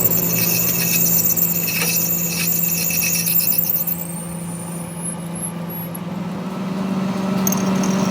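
A machine running with a steady hum, with high squealing and scraping of metal for about the first four seconds that then dies away.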